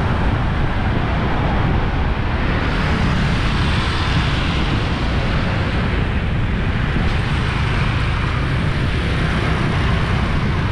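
Steady city street traffic noise, a dense, even rumble of passing vehicles with nothing standing out.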